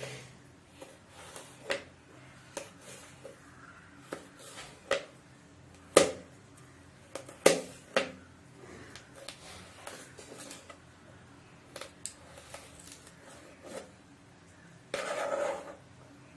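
Kitchen knife slicing a green bell pepper on a chopping board: irregular sharp taps as the blade strikes the board, a few louder than the rest, with a short noisier sound about fifteen seconds in.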